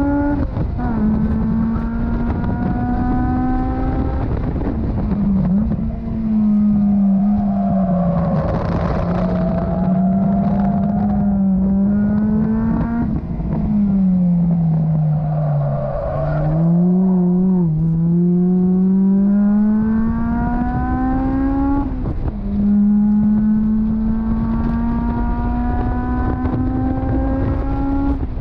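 Honda S2000's four-cylinder engine heard from the open cockpit under hard track driving: the revs climb steadily in each gear and drop sharply at each upshift, then fall away as the car slows, with a short rev blip about two-thirds of the way through. Steady wind rush runs underneath.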